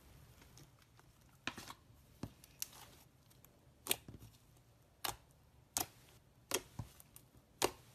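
Thick green slime being stretched, folded and pressed by hand, giving a series of sharp pops and crackles, about one a second and irregular, starting about a second and a half in.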